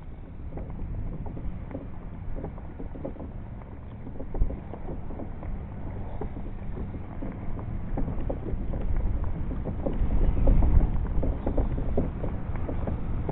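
Wind rumbling on the microphone, with water lapping and slapping against the hull of a plastic pedal kayak in small, frequent splashes. It gets louder about ten seconds in.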